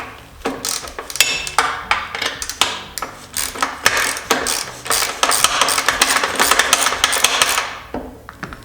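Hand tools working metal parts during a dirt bike teardown: a run of sharp metallic clicks and knocks that comes thick and fast through the middle seconds, then eases off near the end.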